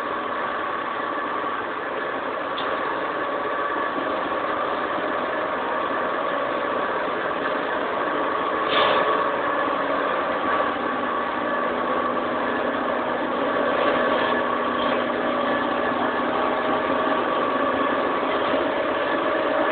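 Machine tool running steadily at a cutting operation: a constant hum carrying several steady tones, with a faint tick now and then.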